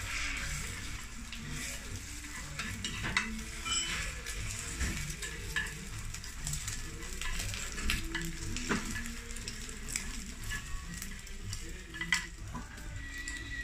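Beaten egg sizzling in a rectangular tamagoyaki pan over a gas flame, while wooden chopsticks stir and fold it, scraping and clicking against the pan.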